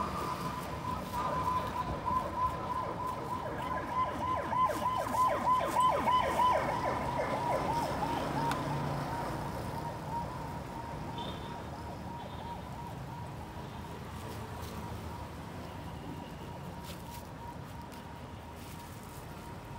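A siren in the street: a steady high tone with a fast, repeated rising sweep that grows loudest a few seconds in, then fades to a faint steady tone.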